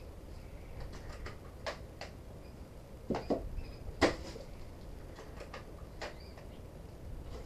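A few sharp clicks and snaps of airsoft guns being shot and handled, a second or two apart, the loudest about four seconds in.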